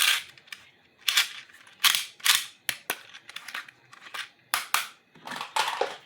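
Plastic toy packaging and playset parts being handled and unwrapped: a run of short crinkling, crackling rustles with a few sharp clicks.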